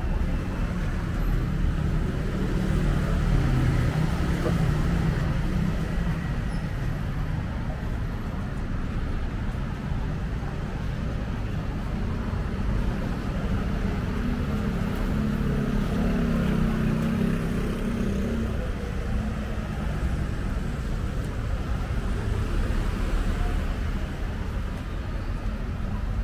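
Street traffic on a busy city road: a steady wash of engine and tyre noise. Vehicles pass close a few seconds in and again about halfway through.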